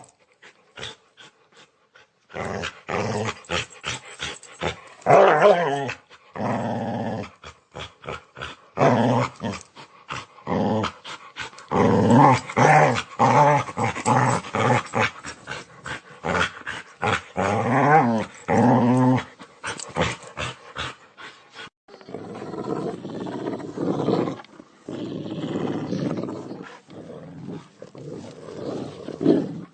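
Angry dog growling and snarling in repeated bursts, with short sharp barks or snaps in between. In the last several seconds it turns to a lower, rougher growl.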